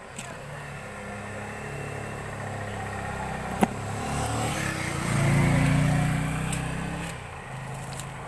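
A motor vehicle's engine passing close by: its hum grows louder to a peak about five to seven seconds in, then fades. A single sharp click sounds about three and a half seconds in.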